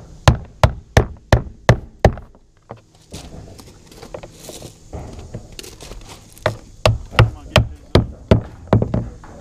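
Hammer knocking plastic locking clips onto the rim of a plastic tank to clamp its two halves together: a run of quick knocks at about three a second, a pause of a few seconds, then a second run.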